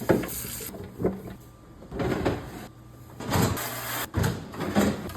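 Cloth wiping and scrubbing the plastic inside of an emptied refrigerator, in uneven rubbing strokes about once a second.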